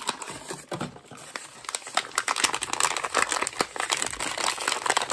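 Thick paper blind-bag packaging crinkling and rustling as it is handled, in dense irregular crackles that get busier about two seconds in.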